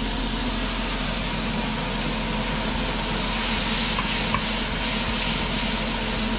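Onions, ginger and garlic frying in hot oil in a pan, sizzling steadily, over a steady low hum.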